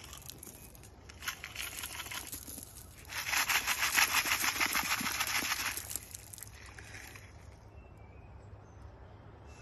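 Rustling as a body-armour plate is handled in its cover, then a rasping rip lasting about three seconds midway through.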